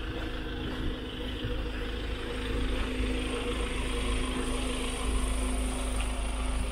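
A vehicle engine idling: a steady hum over a low rumble.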